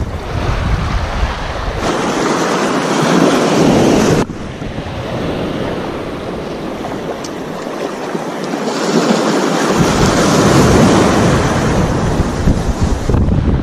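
Small sea waves washing and breaking over a shallow rocky shore, in swells that rise and fall, with wind buffeting the microphone.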